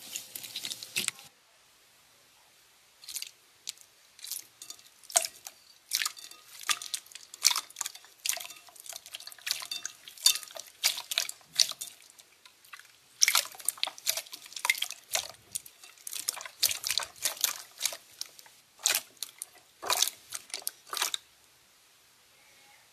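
Hands squishing, poking and pressing clear jelly slime, giving quick, irregular wet clicks and pops.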